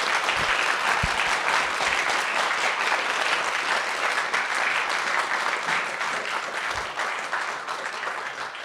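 Audience applauding, a dense steady clapping that gradually dies away near the end.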